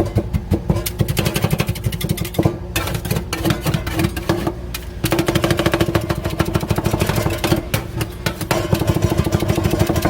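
Metal spatulas rapidly chopping and striking ice cream on a chilled steel plate: a fast, irregular clatter of metal hits, over a steady low hum.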